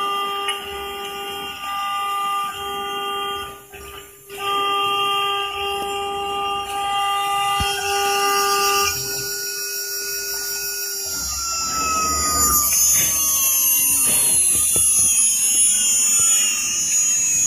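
CNC router spindle cutting a sheet of board: a steady pitched whine with brief dropouts twice in the first few seconds. After about ten seconds the steady pitch breaks into tones gliding downward, with a thin high whine above them.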